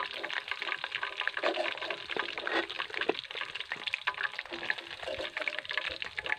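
Swamp eel pieces deep-frying in hot oil in a steel wok, a steady crackling sizzle full of small pops, while a metal spatula scrapes in the pan lifting the fried pieces out.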